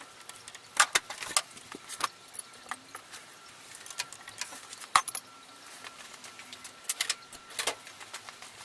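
Metal hand tools clicking and clinking irregularly against metal while the car battery is being disconnected, with a sharper knock about a second in and another about five seconds in.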